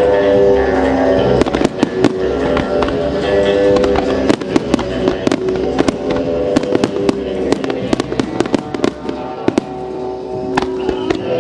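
Fireworks going off in rapid succession, dozens of sharp reports and crackles, over music played through the show's loudspeakers.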